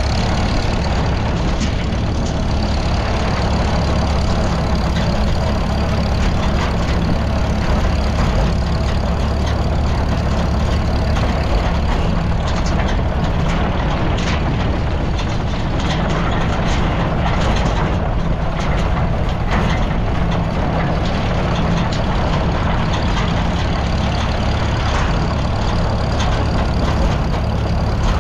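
Vintage Farmall tractor's four-cylinder engine running steadily as the tractor drives across a field.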